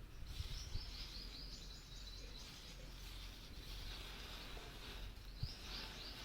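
Faint outdoor background noise with a bird chirping, two quick runs of repeated high notes, and a couple of soft knocks.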